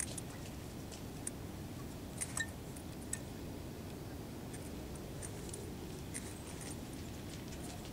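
Steady low background noise with scattered faint light clicks and rustles, a few close together around two to three seconds in and more in the second half: small handling noises close to the microphone.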